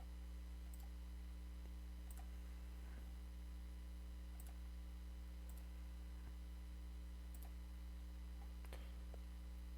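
Faint computer mouse clicks, about six, spaced irregularly a second or two apart, over a steady low electrical hum.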